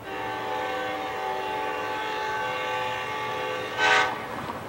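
Locomotive air horn sounding a long, steady multi-tone chord from an approaching train, then a brief louder blast about four seconds in.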